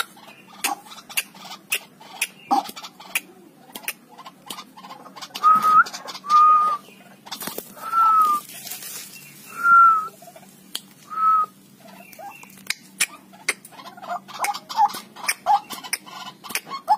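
White-breasted waterhen calling at close range: a run of sharp clicks, five clear whistle-like notes in the middle, then a quick series of short, lower clucking calls near the end.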